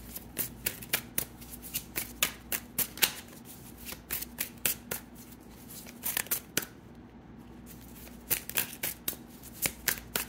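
Tarot deck being shuffled by hand: a quick run of sharp card snaps, several a second, with a pause of about a second and a half after the middle.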